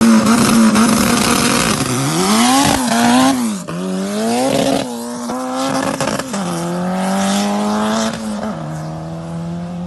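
Turbocharged race car engine revving hard while the car spins its tyres in donuts, its pitch dipping and climbing several times, then held steady at high revs and easing down a step near the end, with a hiss of tyre spin over it.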